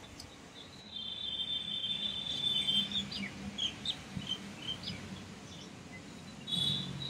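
Birds calling: a held high whistling call starting about a second in, then a string of short quick chirps, and one more short high call near the end.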